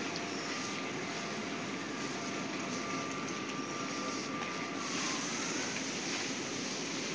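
Steady rushing noise of a passenger train at a station platform, with a faint high whine that holds level and then bends upward about five seconds in.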